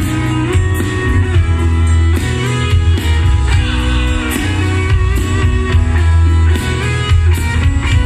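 Live grupero band playing amplified, with electric guitar over bass, drums and percussion.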